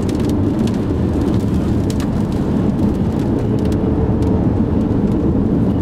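Steady wind and road noise inside a car driving through a strong thunderstorm inflow jet of about 60–70 mph winds, with scattered sharp ticks against the car.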